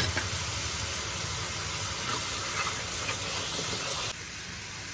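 Raw eggs frying with chopped vegetables in a hot nonstick pan, a steady sizzling hiss that drops suddenly in loudness about four seconds in.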